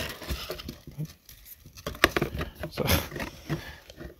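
Hands handling a cardboard model box: irregular taps, knocks and scraping as a piece is fitted and the box is turned over, with a couple of sharper knocks about two and three seconds in.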